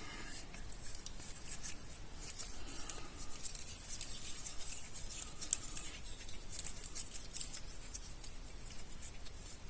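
Faint, irregular light clicks and scratches from soldering work on a remote key fob's circuit board, as its switch pads are tinned with a soldering iron.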